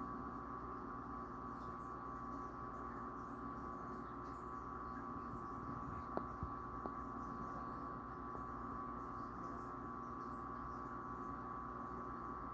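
Steady hum of running reef-aquarium equipment, with a high steady whine over a lower drone and a few faint clicks about halfway through.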